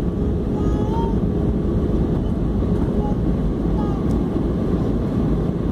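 Steady engine and airflow noise of an airliner heard from inside the passenger cabin during descent, a dense low rumble with no change in level.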